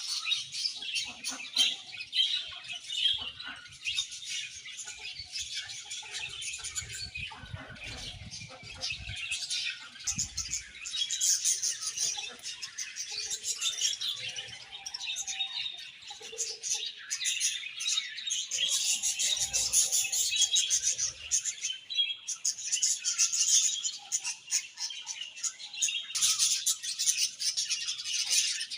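A colony of budgerigars chirping and chattering without a break, many birds calling over one another in a dense, high twittering.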